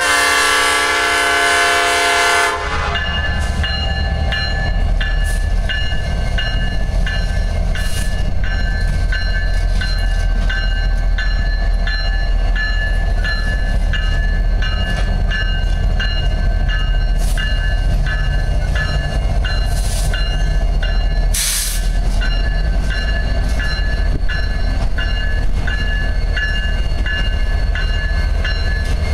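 Freight train horn sounding a chord that cuts off about two seconds in. After it, the diesel locomotives rumble steadily past with their wheels on the rails, while a grade crossing bell dings about twice a second. A short burst of noise comes about three-quarters of the way through.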